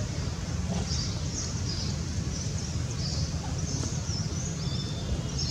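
Outdoor forest ambience: short, high bird chirps repeating about once a second over a steady low rumble.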